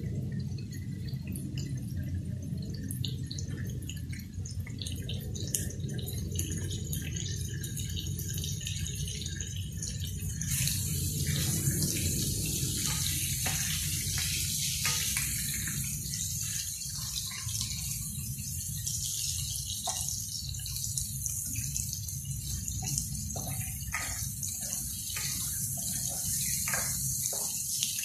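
Shrimps sizzling and crackling in hot oil in a frying pan, the sizzle growing much louder about ten seconds in, over a steady low rumble. In the second half a spatula clicks and taps against the pan as the shrimps are turned.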